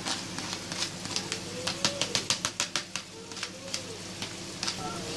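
Wet chopped spinach tipped from a plastic colander into a hot oiled frying pan with shrimp and onions: a faint sizzle with a quick run of crackles and taps, densest a couple of seconds in. A faint low tone rises and falls about three times underneath.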